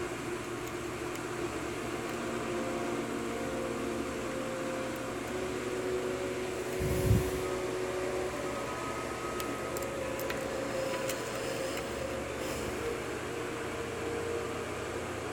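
Faint light clicks of a hook pick working the pins of a 6-pin Corbin lock cylinder, scattered mostly through the second half, over a steady hum. One dull thump about seven seconds in.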